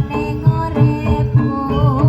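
Jaranan (kuda lumping) ensemble music played live: a steady, quick low drum beat under ringing pitched percussion, with a wavering melody line coming in near the end.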